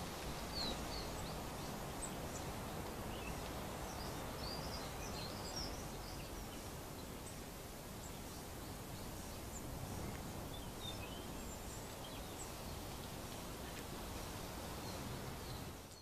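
Steady outdoor background hiss with scattered faint, high bird chirps and twitters from small garden birds, coming in clusters about a second in, around five seconds in, and again around eleven seconds.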